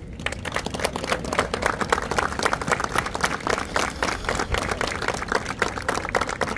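Audience applauding: many hands clapping in a dense, steady patter that breaks out all at once.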